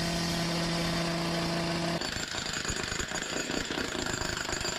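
Loud power tool running on site: a steady hum over harsh noise for about two seconds, then a rougher, uneven noise.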